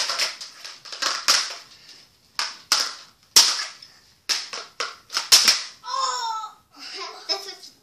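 Plastic toy lightsaber and toy sword clacking together in an irregular series of sharp hits, about a dozen in all. A child gives a short vocal sound about six seconds in.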